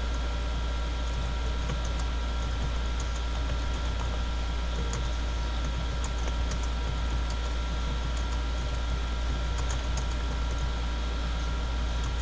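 Typing on a computer keyboard: scattered light key clicks over a steady low hum and hiss.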